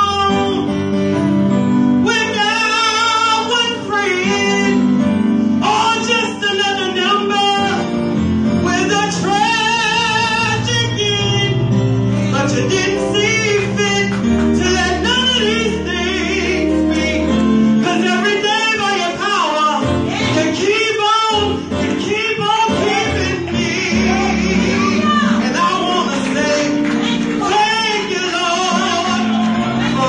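A woman singing a gospel song live into a microphone over instrumental accompaniment, her voice bending through long sliding vocal runs.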